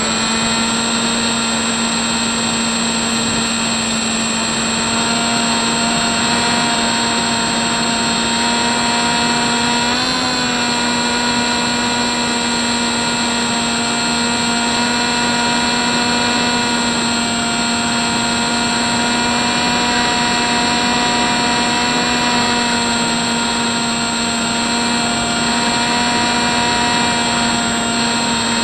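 Hubsan Spyhawk model plane's electric motor and propeller whining steadily in flight, heard from a camera mounted on the plane, over a rush of wind. The pitch wavers briefly about ten seconds in.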